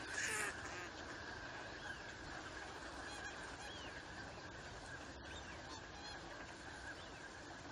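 A large flock of ducks and swans on the water: one loud honking call about half a second in, then faint scattered calls from the flock.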